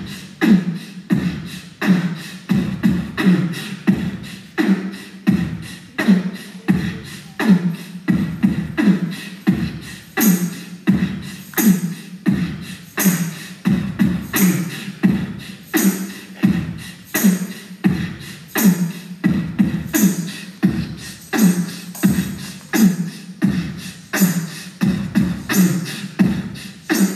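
A beatboxed rhythm: a steady, evenly repeating groove of mouth-made bass-drum thumps and sharper snare and hi-hat clicks, about two strong beats a second.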